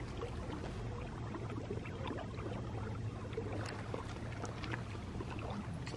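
Steady, low rushing outdoor background noise with a few faint ticks.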